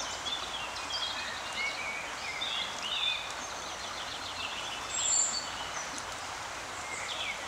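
Steady rush of river water with songbirds chirping and whistling over it throughout.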